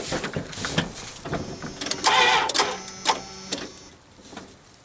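Knocks from the driver's door, then about two seconds in a van's starter briefly whirs as it tries to crank the cold engine on a dead battery. It dies away without the engine catching.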